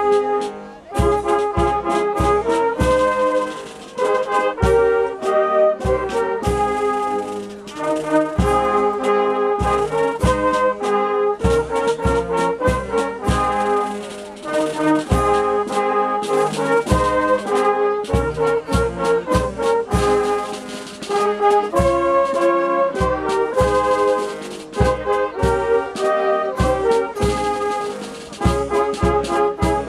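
Brass band playing a tune outdoors, with flugelhorns and saxophones carrying the melody and a bass drum marking a steady beat, pausing briefly between phrases.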